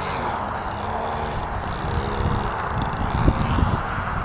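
Engine of a giant-scale Hanger 9 P-47 radio-control model running as the plane makes a low pass, its note falling in pitch as it goes by. Wind buffets the microphone throughout, with the strongest gusts a little after three seconds in.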